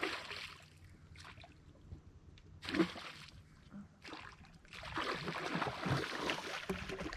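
A hooked gar thrashing and splashing at the surface as it is reeled in to the bank: a sharp splash at the start, another near three seconds in, then a longer run of splashing over the last two seconds.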